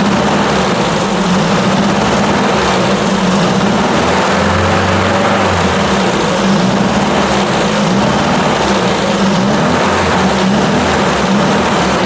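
1966 Triumph Spitfire's 1147cc four-cylinder engine running steadily, heard up close at the distributor, its note wavering slightly. It runs smoothly now, despite earlier rough running and a distributor advance that the owner suspects is sticking.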